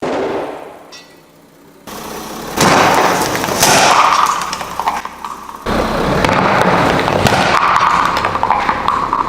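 A car tyre rolling over and crushing brittle objects: a crunch that fades within a second, then, from about two seconds in, dense crackling and popping that goes on with little let-up, with an abrupt change partway through.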